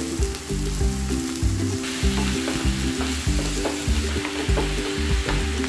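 A spoon stirring and scraping through taro leaf stir-fry with grated coconut as it fries in an oiled pan, starting about two seconds in, with short scrapes on each stroke. Background music with low notes plays underneath.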